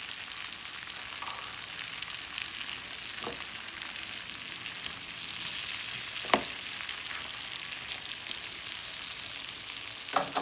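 Whole head-on shrimp frying in butter and garlic in a pan, a steady sizzle that swells about halfway through. A few sharp knocks of a utensil against the pan as the shrimp are stirred.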